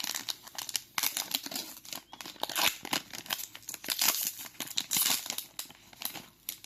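Plastic trading-card booster pack being torn open and its wrapper crinkled, a run of irregular crackling and tearing noises.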